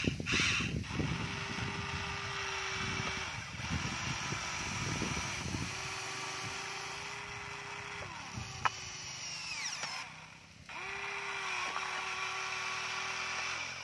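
Huina remote-control toy excavator's small electric motors whining steadily as the arm and bucket move, in four spells of two to three seconds that stop and start again, the pitch sagging as some spells end. Rattling noise runs under the first half, and one sharp click comes about two-thirds through.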